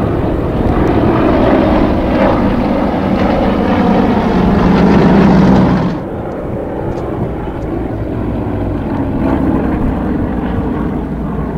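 Propeller drone of a formation of Yak-52/Yak-54 aerobatic planes and their nine-cylinder radial piston engines passing overhead, swelling louder, then cutting suddenly about six seconds in to a quieter, steady, more distant drone.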